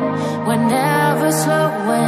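Background music: a melodic track with a sliding lead line over a held low note.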